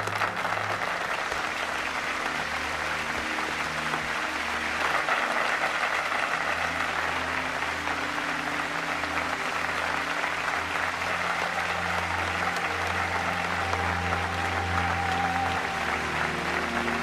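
Sustained applause from a large crowd, over background music with long held low notes.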